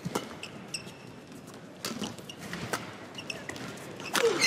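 Badminton rackets striking a shuttlecock in a doubles rally: a run of sharp hits, with court shoes squeaking. The rally ends in a loud jump smash about four seconds in.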